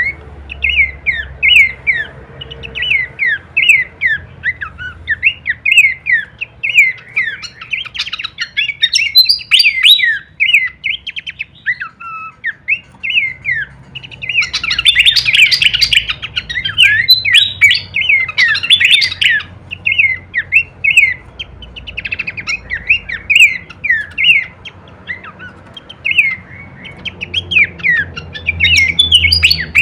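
Pelanduk semak babbler song: a continuous run of short, quick, sweeping chirps, thickening into denser, louder chatter about eight seconds in and again from about fourteen to nineteen seconds.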